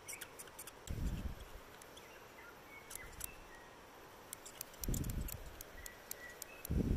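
New Zealand fantail giving a scatter of short, high, squeaky chirps and ticks. Three low thumps about a second in, about five seconds in and near the end are the loudest sounds.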